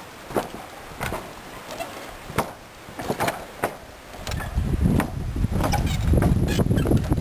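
Footsteps knocking on the wooden-plank deck of a pedestrian suspension bridge, at walking pace. About four seconds in, a low rumble comes in and grows louder, over the steps.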